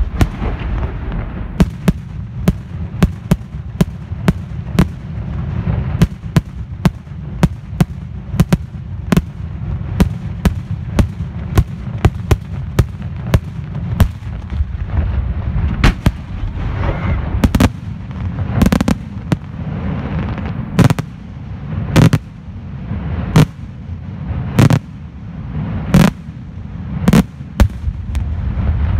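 Aerial fireworks shells bursting in a rapid series of sharp bangs, about two a second for the first half, then slower, heavier bangs about a second apart, over a continuous low rumble of the display.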